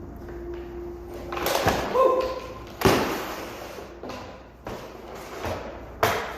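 Three sharp knocks or thumps, the loudest about three seconds in and the last near the end, with a brief squeak between the first two.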